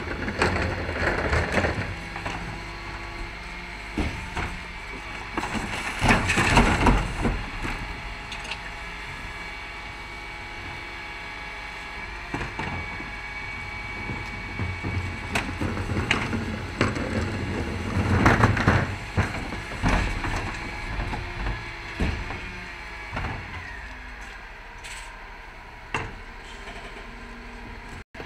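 A refuse truck's rear bin lift cycling as plastic wheelie bins are tipped and knocked against it, with rubbish crashing into the hopper in loud clattering bursts about 6 s and 18 s in, plus smaller knocks. The truck's engine and hydraulics run steadily underneath.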